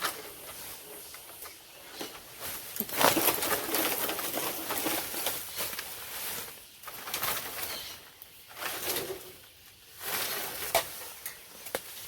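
A bird cooing, with louder bursts of rustling noise between the calls.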